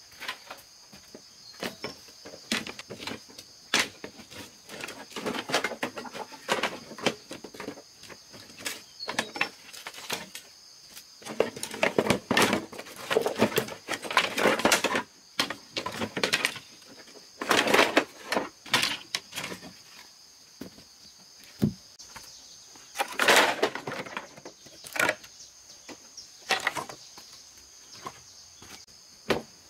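Irregular rustling, scraping and short knocks from hand work, heaviest about twelve to fifteen seconds in, around eighteen seconds and again at twenty-three seconds. A steady high insect drone, typical of crickets, runs behind.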